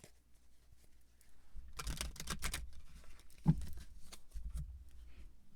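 Deck of affirmation cards being shuffled and handled: a quick flurry of card flicks and rustles about two seconds in, a soft knock midway, then a little more rustling.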